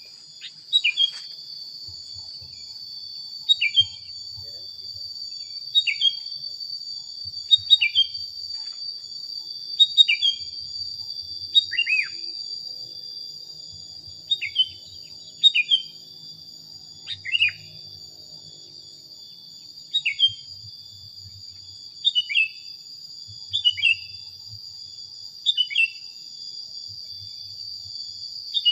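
Sooty-headed bulbul (kutilang) giving short, falling whistled calls, one about every two seconds, over a continuous high-pitched insect drone.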